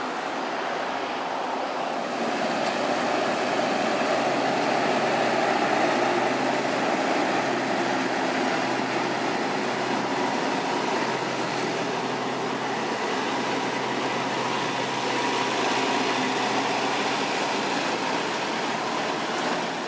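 Large diesel coach bus engine running steadily with a low hum.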